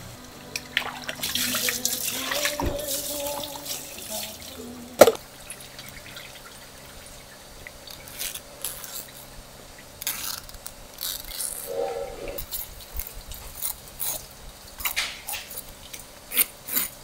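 Wet, dripping handling of skinned eels and knife strokes on a wet wooden cutting board, in scattered bursts, with one sharp knock about five seconds in.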